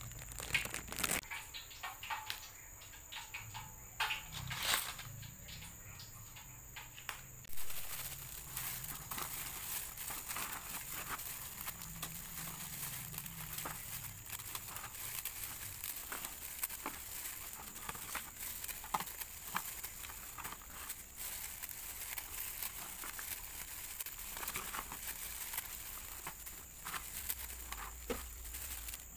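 Dry instant noodle cakes being broken apart by hand: a continuous crisp crackling and crunching of snapping noodles, mixed with the crinkle of plastic gloves and the plastic sheet, with a few louder snaps in the first several seconds.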